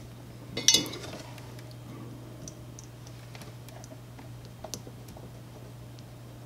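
Small clicks and rattles of the Ultimaker 2+ print head's plastic and metal parts being handled while the old coupler is wiggled loose by hand, with a louder clatter about half a second in and scattered faint ticks after. A steady low hum runs underneath.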